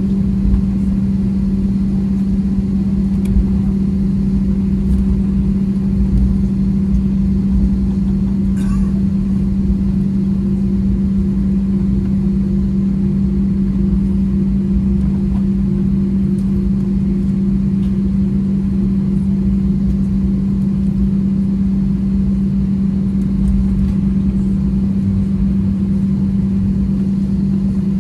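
Airbus A320's IAE V2500 turbofan engines running at taxi idle, heard inside the cabin: a steady drone with a strong low hum and a fainter higher tone over a low rumble.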